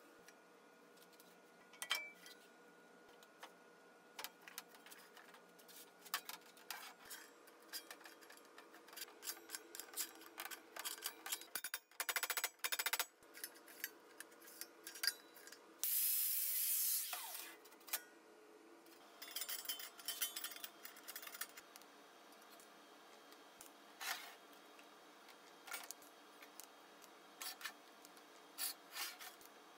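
Sheet-metal parts being handled and fitted together on a steel welding table: scattered clicks, taps and knocks of metal on metal over a faint steady hum, with a loud scraping rush lasting about a second and a half midway.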